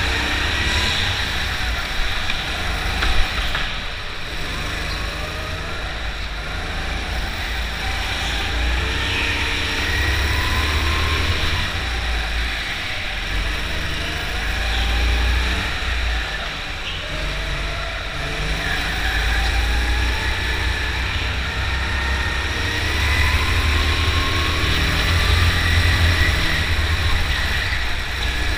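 Go-karts lapping a track, heard from on board: the motors' pitch rises and falls again and again as they speed up out of corners and slow into them, over a steady low rumble of the kart's vibration. A couple of short knocks about two to three seconds in.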